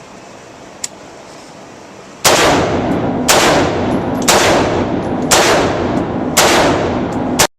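AR-15 rifle with a standard A2 birdcage flash suppressor firing 55-grain rounds semi-automatically: a string of loud single shots about one second apart, each with a short echo, starting about two seconds in. The string cuts off abruptly near the end.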